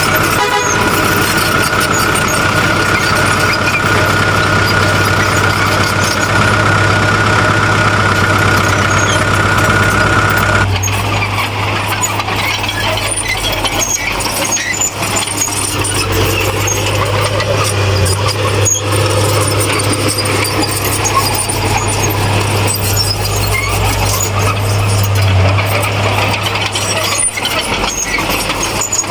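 Heavy diesel earthmoving machinery running steadily, with a high, steady squeal over the engine for the first ten seconds or so that then stops suddenly.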